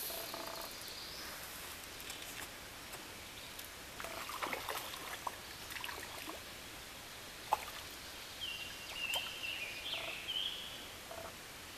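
Stream water running in a steady hush, with birds calling: a chirping call from about eight and a half to ten and a half seconds in, short lower calls near the start and end, and a few faint clicks around four to five seconds in.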